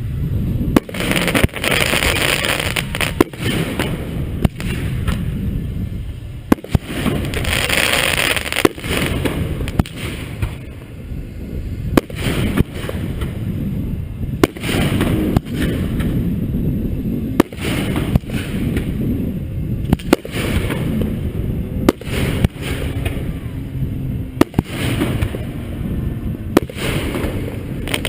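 Aerial fireworks display bursting close overhead: a long run of sharp booms and bangs at irregular intervals, over a continuous low rumble, with stretches of crackle after some of the bursts.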